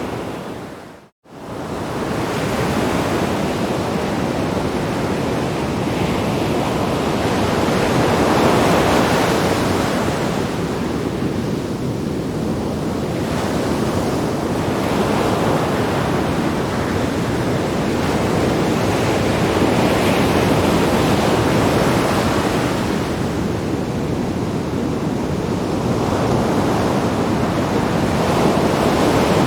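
Sea waves breaking on rocks: a continuous rush of surf that swells and ebbs every few seconds. The sound drops out completely for a moment about a second in.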